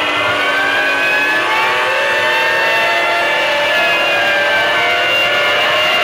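Several outdoor tornado warning sirens sounding at once, their wailing tones slowly rising and falling at different pitches and overlapping.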